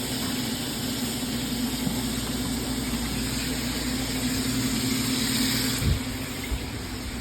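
A steady machine hum with a hiss over it. It eases near the end, where a couple of short thumps come.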